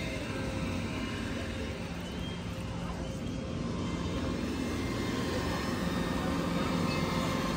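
A steady engine-like rumble that slowly grows louder.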